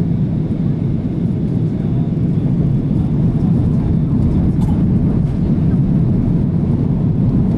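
Steady low rumble inside an Airbus A330-300 cabin on approach, the engine and airflow noise heard from a seat over the wing with the flaps extended.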